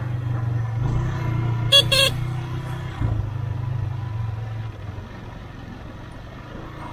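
Motorcycle engine running on the ride, with two quick horn beeps about two seconds in. The engine sound eases off about two-thirds of the way through.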